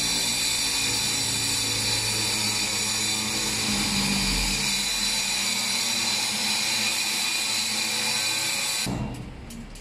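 Corded handheld power tool running against a concrete ceiling: a steady high-pitched motor whine that cuts off abruptly about nine seconds in.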